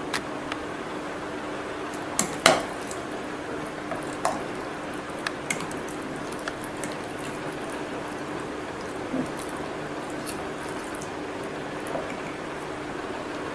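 A metal spoon stirring thick yogurt-soaked oats and chopped fruit in a glass jar: wet squishing with scattered clinks of the spoon against the glass, the loudest about two and a half seconds in. A steady low hum runs underneath.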